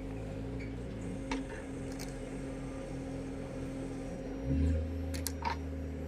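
Steady mechanical hum of a running motor, with a deeper hum setting in about four and a half seconds in, and a few light clicks.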